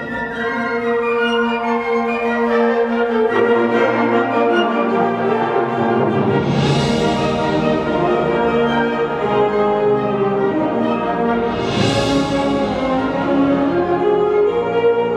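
Symphonic band playing sustained, brass-heavy chords, with lower notes joining about three seconds in. Cymbals ring out twice, about six and a half and twelve seconds in.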